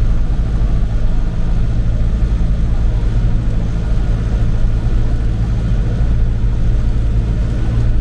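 Tractor engine running steadily, a constant low drone without revving up or down.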